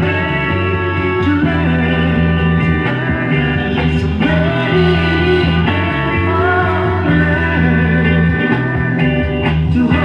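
Soul music recording with guitar over a steady bass line, and singing at times.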